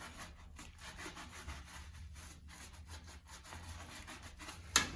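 Sponge with degreaser scrubbing a bicycle disc brake rotor in uneven rubbing strokes, with a sharp knock near the end.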